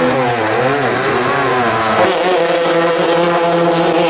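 Long-tail racing boat engines running at high revs, the pitch wavering up and down, then holding steadier after an abrupt change about two seconds in.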